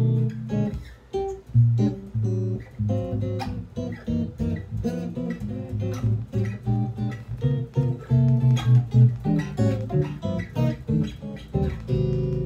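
Fodera 7-string electric bass, plugged in and played fingerstyle: a continuous run of quick plucked notes mixed with chords, which stops abruptly at the very end.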